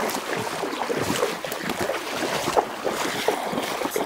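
Water splashing and running: a steady churning rush broken by many small irregular splashes.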